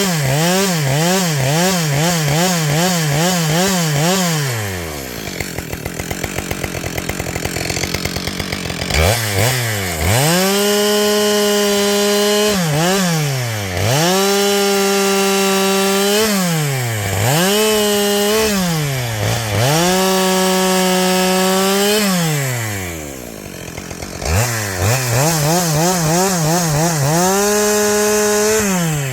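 Gas chainsaw cutting logs with a freshly hand-filed, still rusty chain. The engine runs at full throttle with its pitch wavering rapidly at the start and near the end. It drops back to idle about four seconds in and again about twenty-two seconds in, with brief dips in between.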